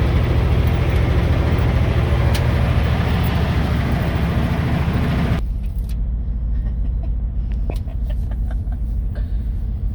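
Vehicle running down the road, engine hum under loud wind and road noise. About five seconds in it cuts abruptly to a much quieter low rumble with a few scattered clicks.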